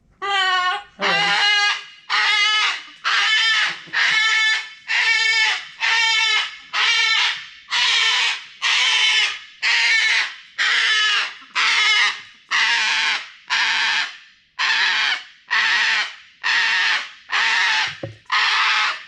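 Cockatoo screaming over and over, about one loud call a second, the early calls clearly pitched and the later ones harsher. It is attention-seeking calling, which the owners take for jealousy of new birds.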